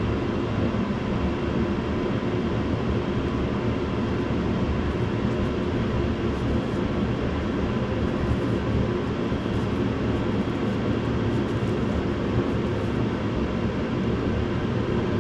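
A steady mechanical drone with a few faint held tones running through it, unchanging in level.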